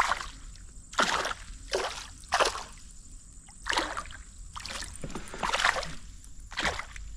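Water splashing and sloshing around a landing net held in the river at a kayak's side, with a caught fish in it, in short irregular bursts, about eight in seven seconds.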